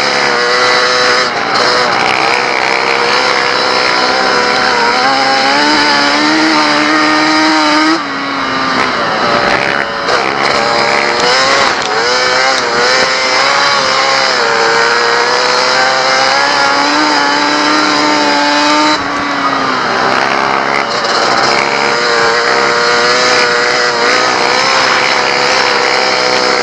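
Racing quad (ATV) engine heard close from on board at full race pace, its pitch climbing under acceleration. The throttle is cut sharply twice, about eight and nineteen seconds in, and the engine then winds up again.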